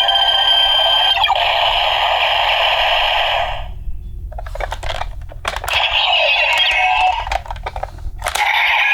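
DX W Double Ridewatch toy playing electronic sound effects and music through its small speaker, stopping about three and a half seconds in, followed by a few sharp clicks and more electronic sounds.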